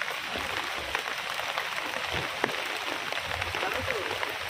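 Heavy rain falling steadily as an even hiss, with scattered sharper drips, one louder tick about two and a half seconds in.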